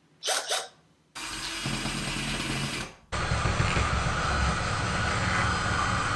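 Handheld power drill running as it bores into a textured ceiling, in two runs: one starting sharply about a second in and lasting nearly two seconds, then a longer one of about three seconds.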